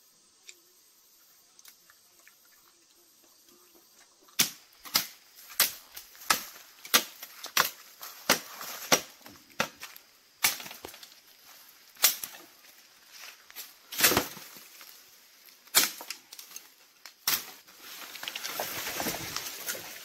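Machete chopping through a green bamboo stem: sharp blows starting about four seconds in, about two a second at first, then fewer and more widely spaced. Near the end comes a long rustle of leaves as the cut bamboo comes down.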